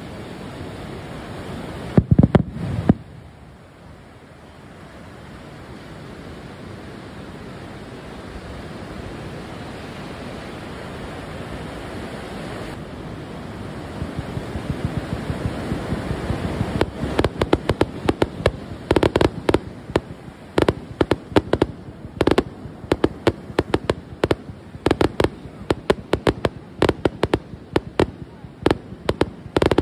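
Beach fireworks display over the sea: about two seconds in, a short cluster of loud bangs; then a steady wash of surf noise that slowly builds; then from about 17 seconds in, a rapid starmine barrage of sharp firework bangs, several a second.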